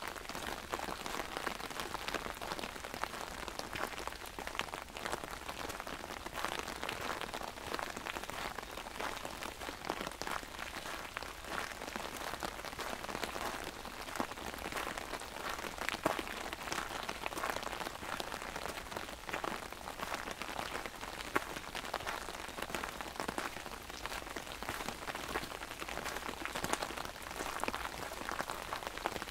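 Steady rain falling on an open umbrella: a dense, even patter of drops, with a couple of louder single drops about halfway through.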